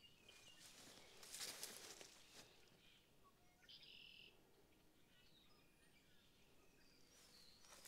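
Near silence: faint outdoor ambience with a few distant bird chirps and a soft rustle between about one and two and a half seconds in.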